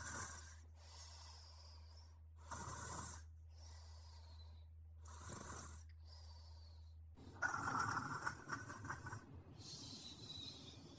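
A person snoring in sleep: soft breathing snores about every two and a half seconds, then a louder, longer rasping snore from about seven seconds in.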